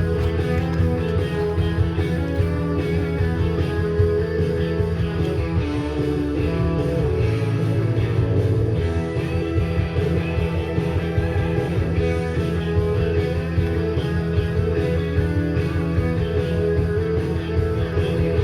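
Rock music with guitar playing throughout.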